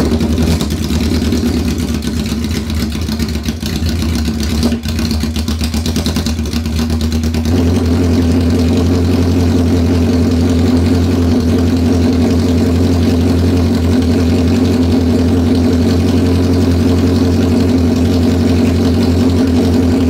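Honda CB750 inline-four engine idling loudly through open exhaust pipes with no mufflers or baffles, shortly after starting. It gets louder about seven and a half seconds in and then holds steady.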